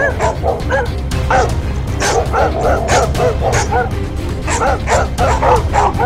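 A dog barking and yapping rapidly, many short barks in quick succession, over background music.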